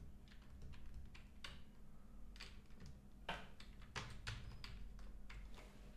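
Computer keyboard typing: irregular, faint keystrokes, sparse at first and quicker and louder from about three seconds in.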